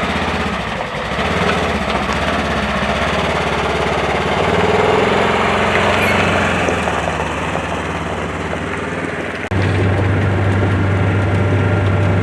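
Vehicle engine running steadily under way. About nine and a half seconds in, it changes abruptly to a steadier, deeper hum.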